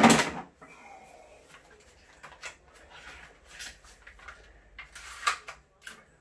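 A knock, then scattered clicks and rattles as a Paslode cordless framing nailer is picked up and handled, with a sharper click about five seconds in.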